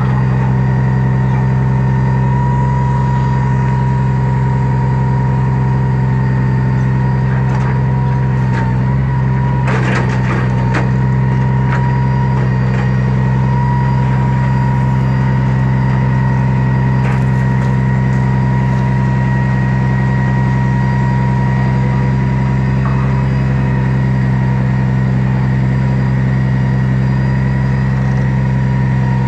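Heavy diesel engine running steadily at idle, with a steady whine above it, as the log loader works. A few knocks and scrapes from about 8 to 11 seconds in, as the grapple takes hold of a big log on the truck bed.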